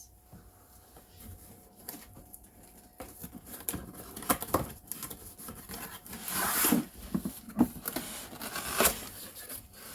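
Cardboard box and packaging being handled and opened: scattered rustling, scraping and sharp clicks and knocks, with a longer rustle about six to seven seconds in.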